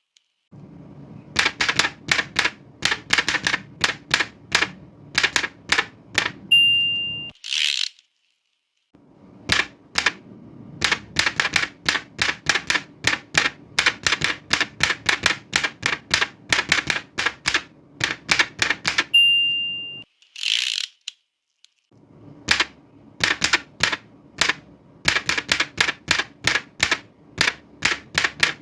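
Old manual typewriter being typed on: runs of rapid key clacks. Twice the margin bell dings, followed by a brief sliding sweep of the carriage return and a short pause before typing starts again.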